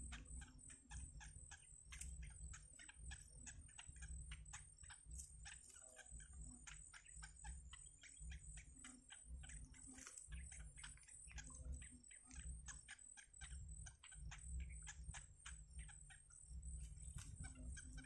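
Faint rapid ticking, several short clicks a second, from yellow bittern chicks begging at the nest, over a steady high-pitched pulsing note and a low rumble.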